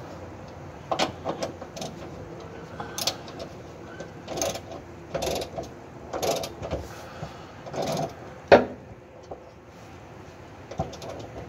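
Hand ratchet wrench clicking in short strokes as a rear shock absorber's mounting bolt is tightened, about a stroke every second, with a sharper metallic click about two-thirds of the way through.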